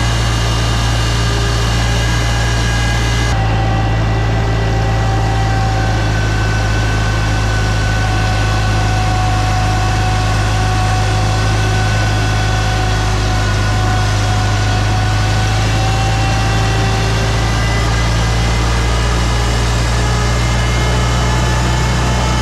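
Farmall 504 tractor engine running steadily at an even speed, a low hum with a sudden change in tone about three seconds in.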